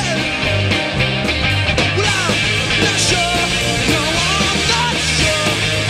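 A rock band playing live: drum kit and electric guitars driving through an up-tempo song without a break.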